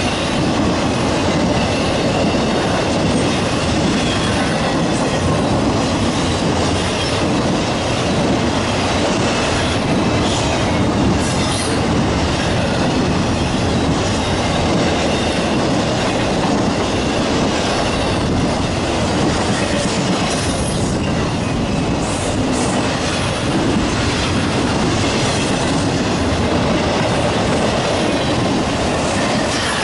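Intermodal freight train of well cars loaded with containers and highway trailers rolling past, its steel wheels on the rails making a steady, loud rumble and clatter.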